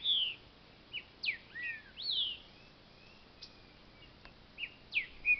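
Green-winged saltator (trinca-ferro) singing: clear whistled phrases of sliding notes, with a pause of about two seconds in the middle before it starts again near the end.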